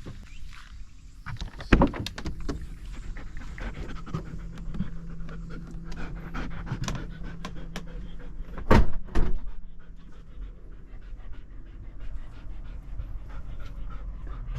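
A dog panting, with scattered clicks and two louder knocks about two seconds in and near the middle.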